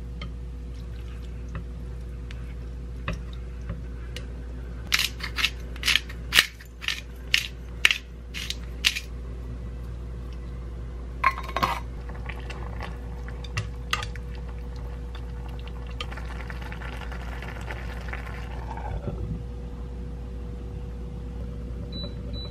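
Pot of noodle soup simmering on an induction hob over a steady hum, with a quick run of about ten sharp clicks of utensils on the pot about five seconds in and a few single knocks after.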